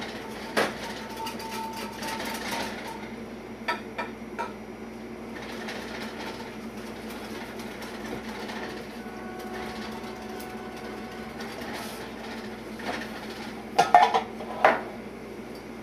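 A wire whisk stirring cornmeal into cold water in a bowl: a fast, continuous scraping and ticking against the bowl, with a few sharper knocks of the whisk on the bowl, the loudest cluster near the end.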